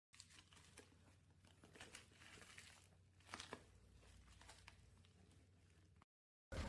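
Faint crinkling and rustling over a steady low hum, with a few sharper clicks. It cuts off suddenly, and a brief louder burst follows near the end.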